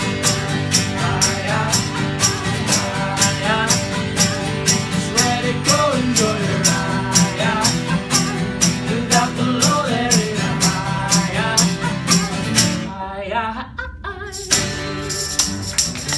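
Live acoustic band: two acoustic guitars strumming and a man singing, with hand percussion ticking about three times a second. Near the end the percussion and guitars drop out for about a second and a half, then come back in.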